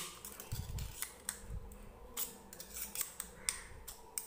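Small screwdriver prying and scraping inside the metal tube of a gas stove spark lighter to work its washer and inner parts loose: a run of irregular sharp metal clicks and scrapes.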